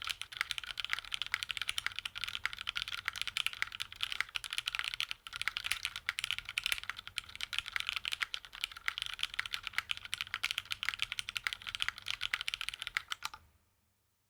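Monokei Kei R1 mechanical keyboard with Cherry MX Hyperglide Black linear switches on an aluminium half plate and GMK keycaps, typed on fast in a dense stream of keystrokes. There is a brief pause about five seconds in, and the typing stops shortly before the end.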